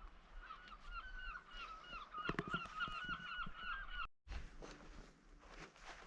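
A bird calling a rapid run of short, repeated calls for about three and a half seconds, followed by footsteps on a path.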